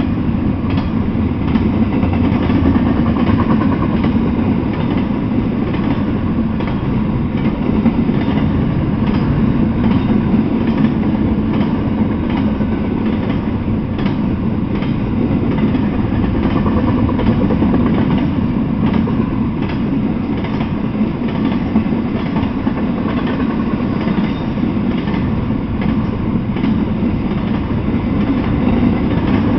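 Double-stack intermodal freight train passing, its container-laden well cars making a loud, steady rumble. Wheels click irregularly over the rail joints throughout.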